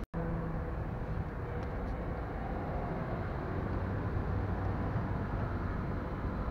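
Steady low background rumble, cut off briefly just after the start, with a couple of faint light clicks about two seconds in.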